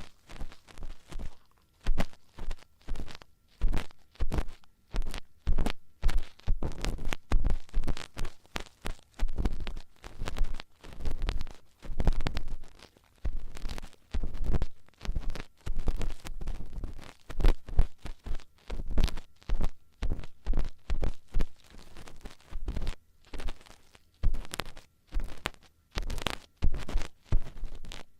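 Ear-cleaning tools scraping and rubbing close against a microphone's ear in quick, irregular strokes, several a second, with low thuds where they bump the microphone.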